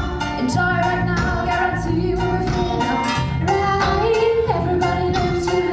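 Live reggae band playing, with a female lead vocal singing a held melody over a steady drum beat and bass.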